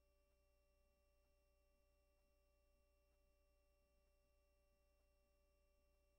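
Near silence: only a faint steady electrical hum and whine, with faint ticks about once a second.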